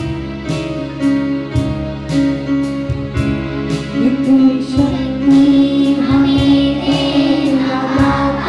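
Hindi prayer song with held chords and a steady beat of about two strikes a second; singing voices come in about halfway through.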